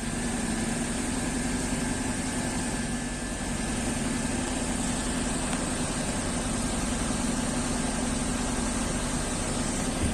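Diesel engine of an Iveco Eurocargo fire-brigade aerial ladder truck, idling steadily up close, with an even drone and a constant hum.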